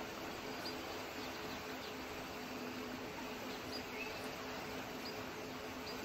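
Steady rushing of a fast-flowing river, with a few faint, short high chirps now and then.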